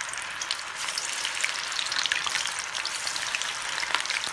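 Battered mutton pakoras sizzling and crackling in hot oil, with many small pops over a steady hiss.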